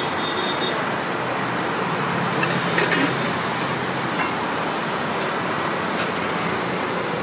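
Steady roadside traffic noise, with a few light clinks of a serving ladle against steel pots.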